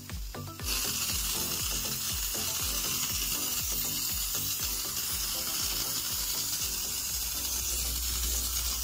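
Handheld nano-steam hair treatment device spraying mist with a steady hiss that starts about a second in, over background music with a steady beat.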